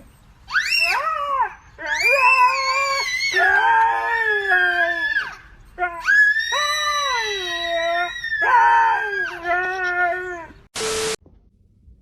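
An animal's long, drawn-out wailing calls, several in a row, each gliding up and then down in pitch. A short loud hiss-like burst follows near the end.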